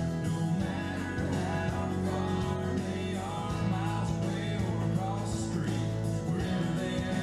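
A country-style song with a singer over guitar and a steady bass beat, line-dance music.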